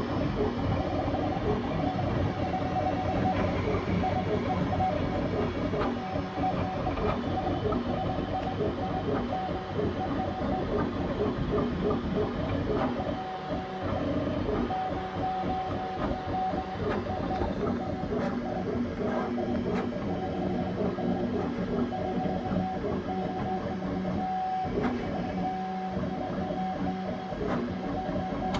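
Bambu Lab X1 Carbon 3D printer at work printing PLA: the toolhead's motors whir in steady tones that stop and start with each move, over continuous mechanical running noise.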